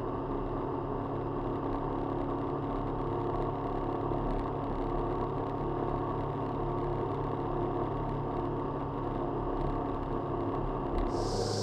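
Motorcycle engine running at a steady pitch, with no revving or change in speed.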